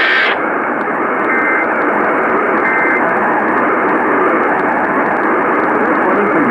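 Loud hiss and static of a weak, long-distance AM radio signal, with three short two-tone data bursts faintly audible under it about a second apart: the Emergency Alert System end-of-message tones closing the alert.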